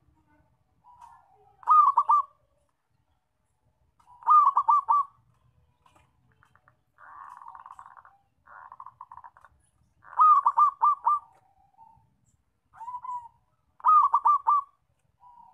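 Zebra dove (perkutut) cooing: four loud song phrases, each a lower lead-in note followed by a quick run of three or four ringing coos, with a quieter rough, rattling stretch about halfway through.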